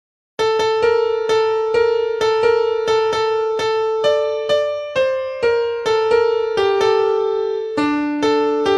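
Electric piano playing a slow single-line melody, about two notes a second, each note struck and fading. It begins after a brief silence, and the line steps down to lower notes near the end.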